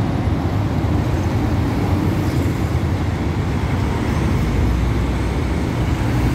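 Busy city road traffic: cars, motorcycles and a bus driving past close by, their engines and tyres making a steady, unbroken low rumble.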